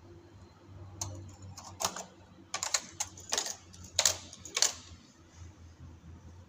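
Metal latch needles of a chunky knitting machine clicking and scraping in the needle bed as they are handled by hand. It comes as an irregular run of about eight sharp clicks and short scrapes.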